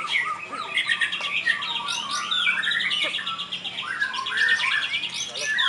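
Several white-rumped shamas (murai batu) singing at once, a dense tangle of overlapping whistles and fast trills.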